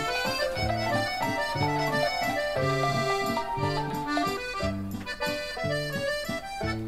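Background music: a light, comical solo accordion tune, with bass notes alternating with chords under the melody.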